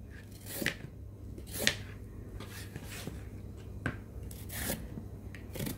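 Hand-held vegetable peeler scraping strips of skin off a raw carrot, a run of short strokes roughly a second apart.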